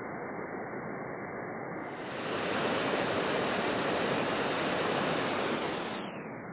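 Rushing water of a waterfall, first heard slowed down as a low, muffled rush. About two seconds in it turns brighter and louder, then near the end it sinks in pitch and dulls again as the playback slows.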